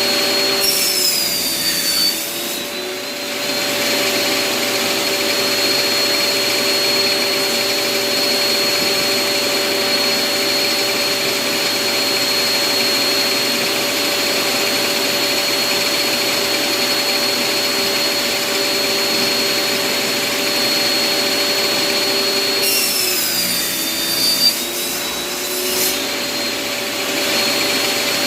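Bosch table saw running at speed with a steady whine. Twice, about a second in and again near the end, its pitch sags for a couple of seconds and then recovers, as the blade slows under load cutting through wood.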